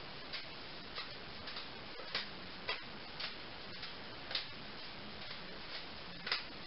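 Juggling balls landing in the hands, a short soft catch about every half second, some louder than others.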